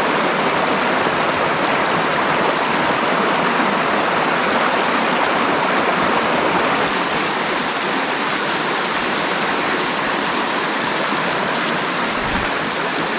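Rushing river water, a steady rush with no break.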